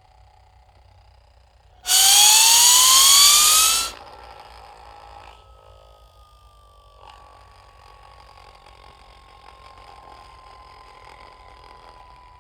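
Synthesized sci-fi UFO sound effect: a faint steady electronic hum, then about two seconds in a loud rushing whine that rises sharply in pitch for about two seconds and cuts off, then a faint tone that slowly falls in pitch.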